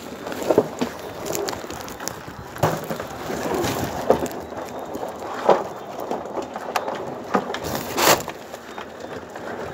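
A woven plastic sack rustling and crackling as hands grab and shift it, with irregular sharp cracks scattered through, the loudest about eight seconds in.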